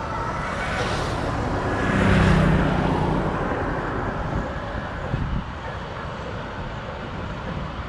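Highway traffic: a vehicle passes close by, its engine and tyre noise swelling to a peak about two seconds in and then fading, over a steady background of road noise.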